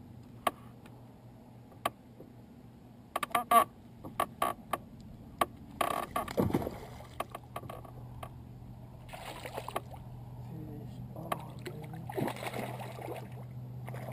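Sharp knocks and clicks of fishing gear against a canoe hull while a hooked largemouth bass is played to the boat, then two bursts of splashing as the fish thrashes at the surface beside the canoe. A steady low hum runs under the second half.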